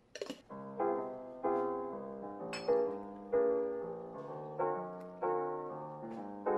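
Background piano music, chords struck in a slow, even pulse. A short burst of noise comes at the very start.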